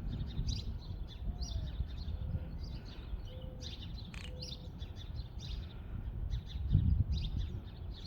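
Greater roadrunner clacking its bill: a run of quick, irregular dry clicks over a low rumble of wind or outdoor noise.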